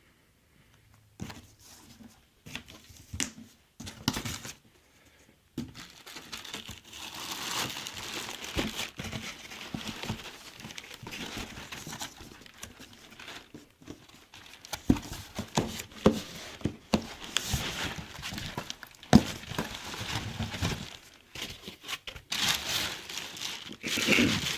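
Packaging being pulled off and handled while a sound bar is unboxed: plastic wrapping crinkling and tearing in irregular bursts, with scattered knocks. It is sparse for the first few seconds, then nearly continuous.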